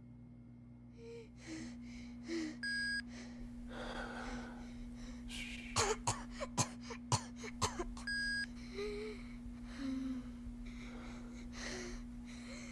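Breathy gasps and coughing sounds, with a cluster of sharp clicks in the middle, over a steady low hum. Two short electronic beeps about five seconds apart.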